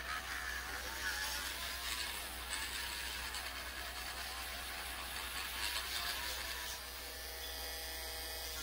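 Electric nail drill whirring as it files down acrylic on a fingernail, its pitch wavering up and down as it is pressed against the nail, then running steadier near the end.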